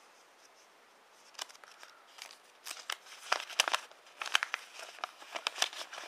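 A folded paper instruction leaflet being unfolded and handled: crisp, irregular crinkling and rustling that starts about a second and a half in and gets busier.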